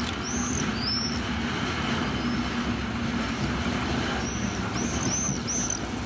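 DR class 114 diesel-hydraulic locomotive running at low speed as it draws its train around a curve, the engine a steady hum. Short high squeaks come and go over it, twice near the start and in a quick run of four near the end.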